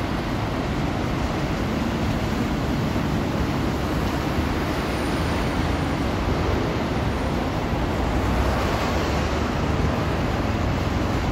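Steady low rushing roar of Willamette Falls, a wide waterfall running at very high water, with no letup.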